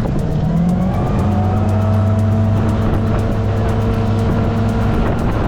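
5.7 MerCruiser V8 sterndrive engine under way, rising in pitch during the first second as it speeds up, then running steadily at speed. The engine runs steady without overheating on its newly replaced water pump.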